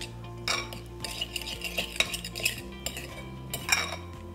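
Metal spoon stirring an oily herb marinade in a ceramic bowl, clinking and scraping against the bowl in a string of light, irregular taps.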